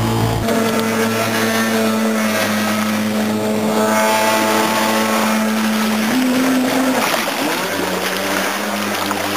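Two-stroke 750 jet ski engine of a homemade 3 m jet dinghy running at speed, a steady pitched engine note; the pitch steps up briefly about six seconds in, then drops back.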